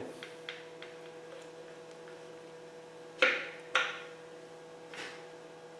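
Metal clicks and knocks of locking pliers working the distributor drive gear in a Land Rover 2.25 engine block: a few light ticks, then two sharper knocks about half a second apart a little past three seconds in, and a fainter one near five seconds, over a steady hum.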